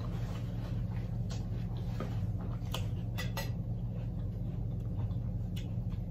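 A metal fork clicking against a glass fruit bowl a few times, over a steady low hum.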